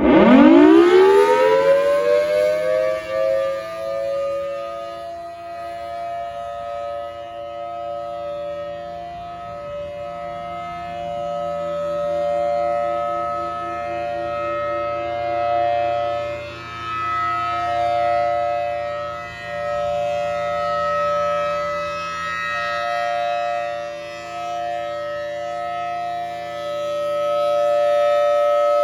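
Federal Signal Thunderbolt 1000T outdoor warning siren winding up from a standstill, its pitch rising quickly and settling within about three seconds into a steady, loud, discordant two-tone wail. The loudness swells and fades every few seconds as the rotating head sweeps past.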